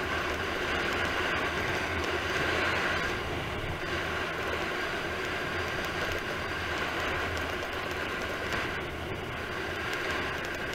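Steady wind rush buffeting a moving camera's microphone, with tyre rolling noise on asphalt underneath, during a fast downhill road descent.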